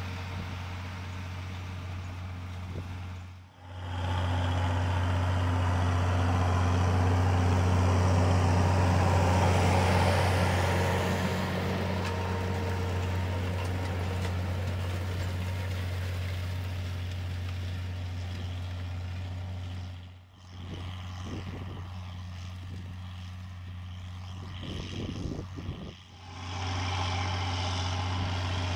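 Massey Ferguson 1134 tractor's diesel engine running steadily under load while pulling an offset 24-disc harrow through rough ground, a deep steady engine note. The sound briefly drops out three times: about a third of the way in, about two-thirds in, and near the end.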